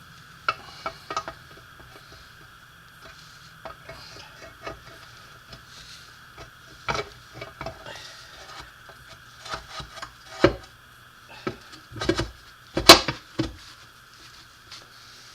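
Irregular clinks, knocks and rubbing of metal NP247 transfer case parts being handled and fitted together, with the loudest knocks about ten and a half and thirteen seconds in.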